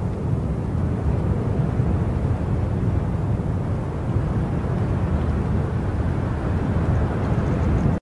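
Strong wind buffeting the microphone in a steady low rumble, cutting off suddenly at the end.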